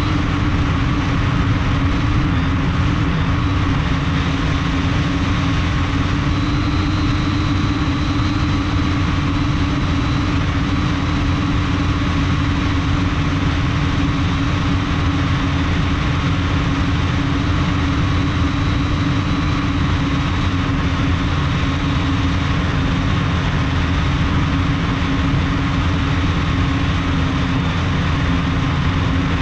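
Multirotor drone's brushless motors and propellers running at a steady hum, heard close up from a camera mounted on the frame, over a low rushing noise of air.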